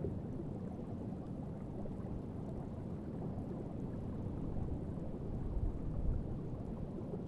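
Steady low underwater rumble of water ambience, swelling slightly about six seconds in.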